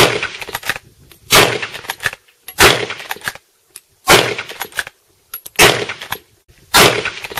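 Six loud, sharp sound-effect bangs, one about every second and a half, each trailing off in a short echoing tail with a few smaller clicks after it.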